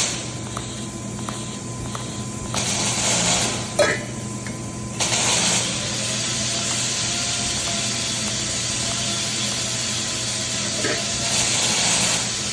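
TIG welding arc hissing over a low electrical hum from the welder. The hiss starts about two and a half seconds in, with a sharp click near four seconds, then holds steady from about five seconds on.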